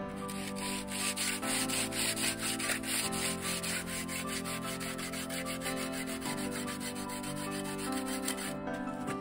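A small hand tool rubbed back and forth in quick strokes along the edge of a freshly poured concrete slab. The rough scraping stops shortly before the end. Background music plays underneath.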